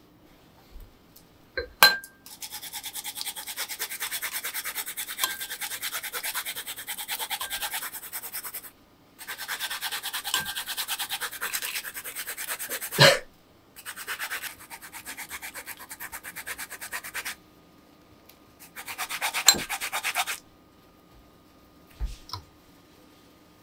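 Yuzu peel being grated on a fine rasp grater: rapid scraping strokes in four long runs with short pauses between them. A couple of sharp knocks fall between runs.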